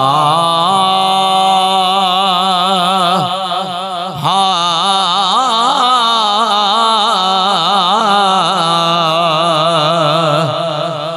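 A man's voice singing the opening of a Punjabi naat in long, drawn-out notes with heavy vibrato and no clear words. There are two long phrases, the second starting about four seconds in.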